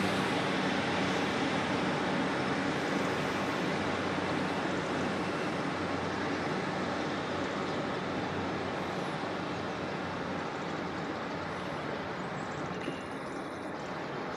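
Class 156 Super Sprinter diesel multiple unit pulling away, its Cummins diesel engines running with a steady low note that gradually fades as the train draws off.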